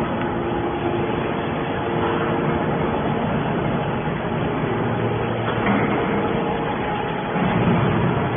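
Hydraulic scrap metal baler running: a steady machine drone with several held tones, growing louder for about a second near the end.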